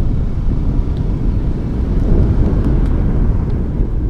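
Pickup truck driving slowly on a dirt road: a steady low rumble of engine and tyres.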